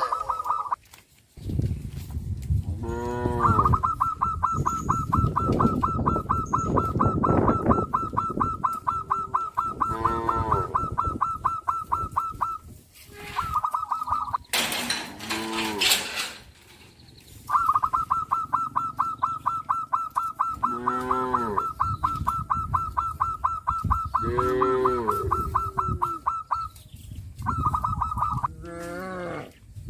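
Cattle mooing about five times in long calls that fall in pitch, over a fast, even, high-pitched pulsing that runs for several seconds at a time. A short burst of rushing noise comes about halfway through.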